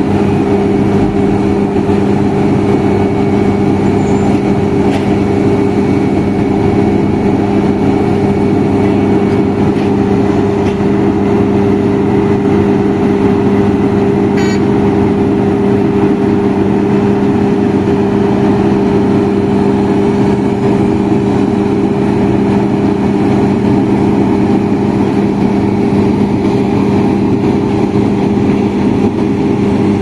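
Heavy diesel engines of a Vögele asphalt paver and the dump truck feeding it, running at a steady, unchanging speed with a constant hum. A single short click about halfway through.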